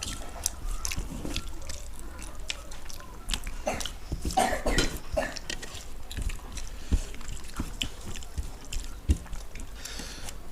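People eating by hand: chewing, lip smacks and the soft squish of rice mixed with dal, with scattered small clicks against the plates.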